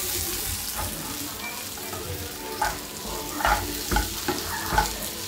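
Prawns frying in oil with sautéed onion and spice powders in a stainless steel frying pan: a steady sizzle while a spatula stirs and scrapes through them. Several sharper scrapes come in the second half.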